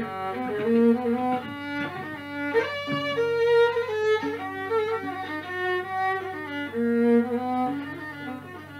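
Violin playing a melody in an instrumental interlude of a Constantinois malouf song: held notes that slide from one pitch to the next, growing quieter near the end.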